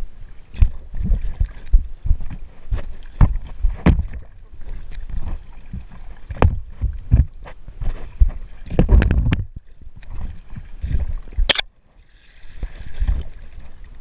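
Kayak paddling: the paddle blade splashing through the water, with frequent sharp knocks and low thumps, and a brief lull just before the last couple of seconds.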